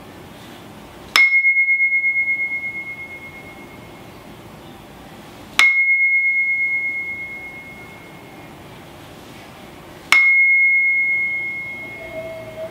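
A resonant sound-sculpture vessel struck three times, about four and a half seconds apart. Each strike rings with one clear high tone that wavers quickly as it fades over a couple of seconds.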